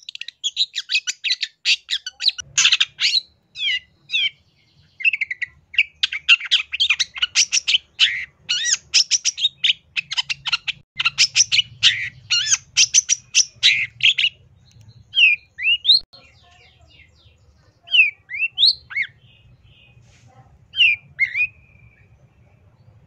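Long-tailed shrike (cendet) singing. For the first dozen seconds it gives a fast, dense run of harsh chattering notes, then switches to separate sharp whistled notes that swoop up and down, a second or two apart. A faint low hum runs underneath.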